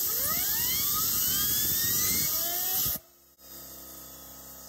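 A blast of compressed air hisses from a nozzle onto a fidget spinner, and the spinner's whine rises in pitch as it spins up. About three seconds in, the air cuts off and leaves the spinner's quieter, steady hum.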